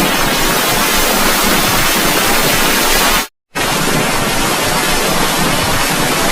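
Harsh, loud static-like noise from heavily distorted, effect-processed logo audio, cutting out for a moment about three seconds in and then starting again.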